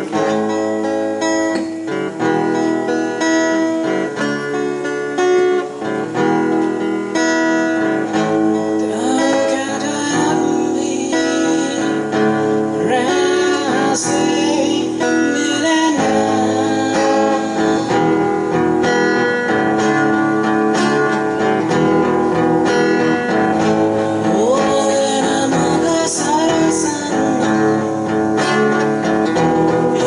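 Acoustic guitars strumming a song, joined by a man singing from about nine seconds in.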